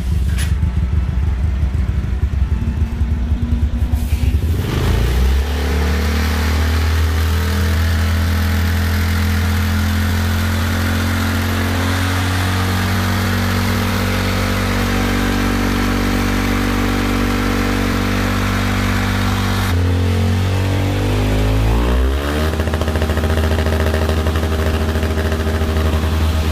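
Honda Vario scooter's single-cylinder four-stroke engine through an unpacked aftermarket racing exhaust, running at low speed for about four seconds, then revved up and held, dipping and climbing back around twenty seconds in before being held high again. The exhaust note is loud and tinny (cempreng), peaking about 110 dBA, the sign of a racing silencer without glasswool packing.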